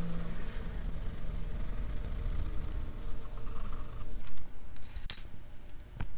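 Graphite pencil scratching on sketch paper in quick shading strokes. The scratching stops about four seconds in, followed by a couple of light clicks.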